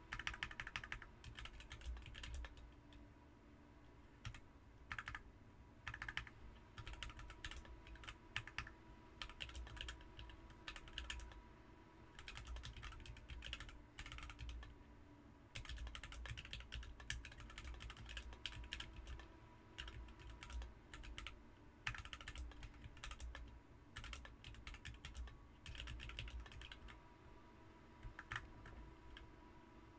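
Typing on a BM43 40% mechanical keyboard fitted with Ms Piggy switches: quick runs of keystrokes in bursts of a few seconds, broken by short pauses, over a faint steady hum.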